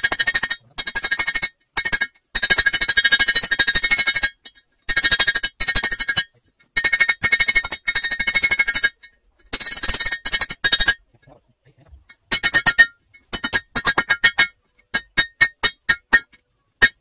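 Hand hammer striking red-hot leaf-spring steel on a steel anvil block, forging a knife blank: quick runs of ringing metal-on-metal blows with short pauses between them, slowing to single, spaced strikes in the last few seconds.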